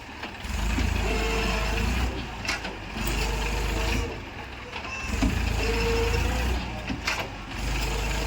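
JCB 3DX backhoe loader's diesel engine revving up and dropping back in repeated surges about every two seconds as it works, with a few sharp knocks in between.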